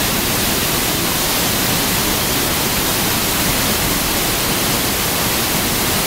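Waterfall pouring over rocks into a pool: a steady, even rush of water.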